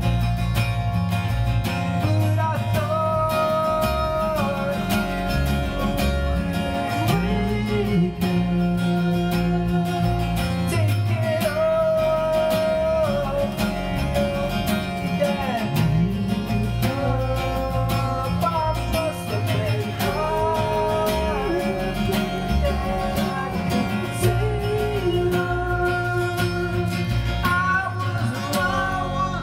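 Live acoustic guitar with electric bass playing an instrumental passage of a song, with a melody line that comes in short phrases every few seconds.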